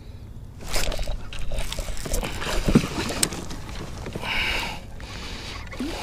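Irregular splashing and sloshing water with knocks against a fishing kayak, starting about a second in, as a big bass is hooked and fought.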